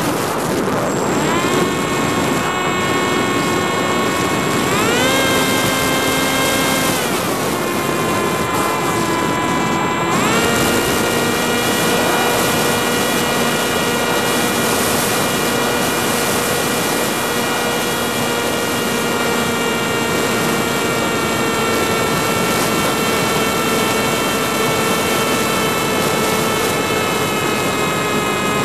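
Electric motor and propeller whine of a radio-controlled FPV aircraft, heard through its onboard camera, over a hiss of wind. The pitch climbs about five seconds in and drops back about two seconds later. It climbs again around ten seconds in, then holds and sags slowly.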